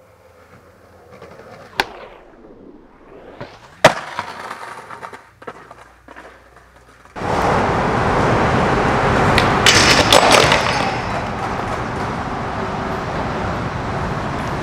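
Skateboard on concrete: a couple of sharp board clacks in the quieter first half, then suddenly loud rough rolling and scraping with a cluster of hard impacts about two-thirds through, as the skater slams onto the pavement.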